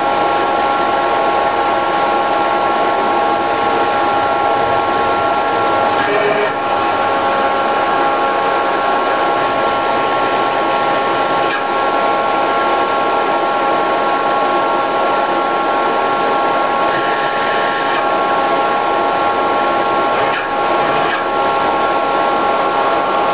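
Servo motor running and slowly turning its output shaft, giving a steady electrical whine of several held tones over a hiss. The sound shifts briefly a few times, about six, twelve and twenty seconds in.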